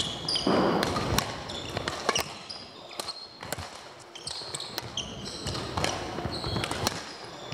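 Badminton rally: sharp racket strikes on the shuttlecock every second or so, mixed with short high squeaks of court shoes on the sports-hall floor.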